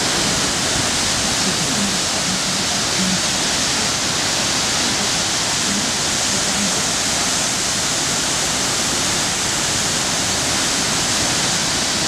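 The Yellow River's Hukou Waterfall: a heavy, silt-laden torrent plunging into a narrow gorge, making a loud, steady rush of falling water.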